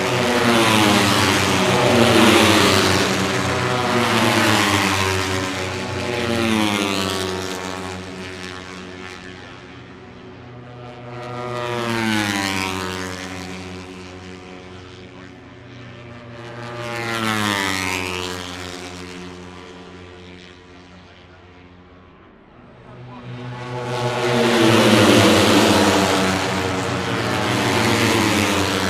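Moto3 racing motorcycles passing at high revs, one after another, each engine note rising as it approaches and falling in pitch as it goes by. The loudest passes are at the start and about 25 seconds in, with quieter single passes in between.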